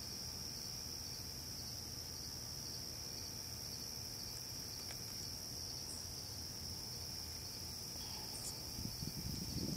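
Steady night chorus of insects, one unbroken high-pitched trill, with a low rumble coming in near the end.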